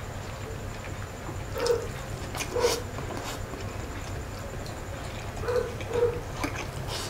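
Close-up mouth sounds of chewing a mouthful of fried rice, with four short wet smacks: two about two seconds in and two near the end. A steady low hum runs underneath.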